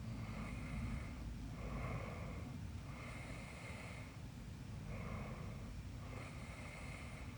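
A person snoring: rough, noisy breaths repeating about every second and a half over a steady low rumble.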